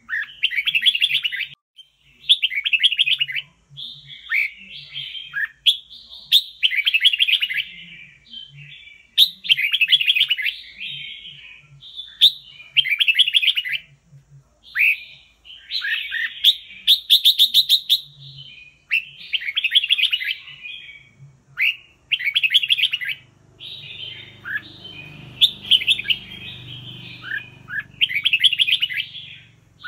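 Red-whiskered bulbul singing: a run of loud, chattering whistled phrases, each about a second long, repeated every second or two.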